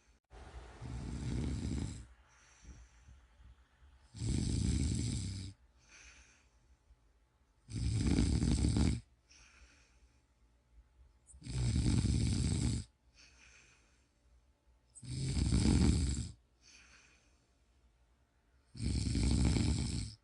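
A sleeping person snoring: six snores in a slow, even rhythm, one about every three and a half to four seconds, with much softer breathing sounds between them.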